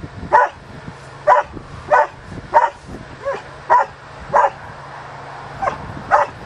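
A dog barking repeatedly, about nine short barks with a brief pause near the end.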